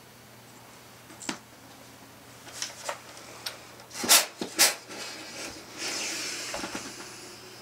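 Steam iron pressing a jeans hem on an ironing board: a few light clicks of handling, two firm thumps as the iron is set down about four seconds in, then a short hiss of steam near the end.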